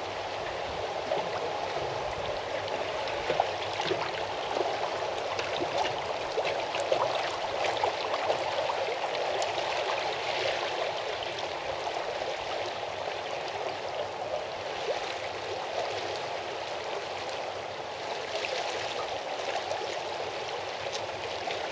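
Water rushing and gurgling steadily, with a dense patter of small splashes like a fast stream.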